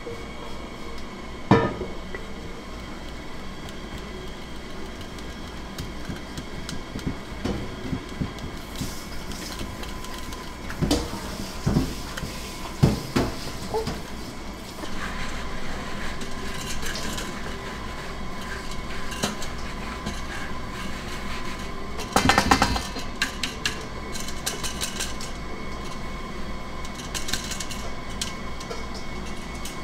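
Kitchen bowls and utensils knocking and clinking now and then, with a quick run of rattling clicks about two-thirds of the way through, over a faint steady hum.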